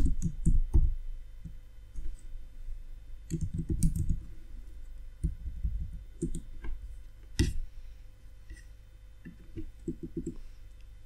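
Typing on a computer keyboard in short irregular bursts of keystrokes, with one sharper keystroke about seven seconds in.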